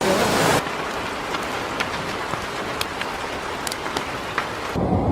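Steady hiss of heavy rain with scattered sharp taps of drops. Near the end it cuts to a lower, rumbling noise.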